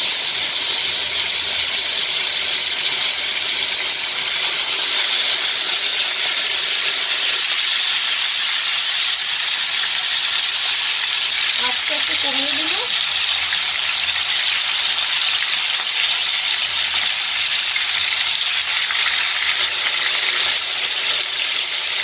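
Curd-marinated chicken leg pieces shallow-frying in hot oil and ghee in a nonstick pan: a loud, steady sizzle as the moisture of the marinade meets the hot fat.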